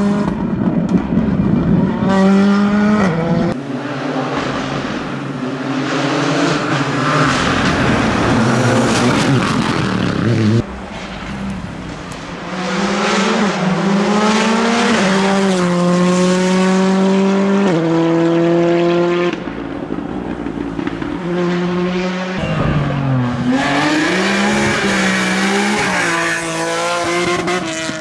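Rally car engines at full throttle, the note climbing through each gear and dropping at every upshift, with a brief lift and pick-up again near the end. The sound jumps abruptly several times as one car's pass gives way to another's.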